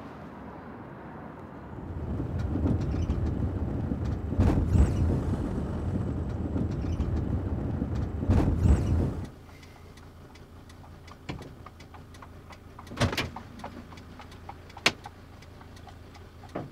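Mercedes van heard from inside the cab while driving: a steady low engine and tyre rumble. About nine seconds in the rumble falls away, leaving a quieter background with several sharp knocks and clicks.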